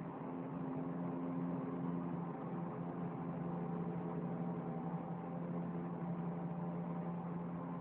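Steady low droning hum with several held tones, an unexplained sound in the sky that sounds like a jet hovering overhead.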